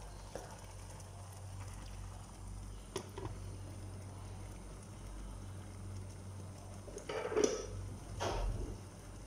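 A pot of chicken feet simmering in a thick sauce over a gas burner, with a steady low hum underneath. A slotted spoon stirs through it, with a couple of light knocks about three seconds in and two louder stirring sounds near the end.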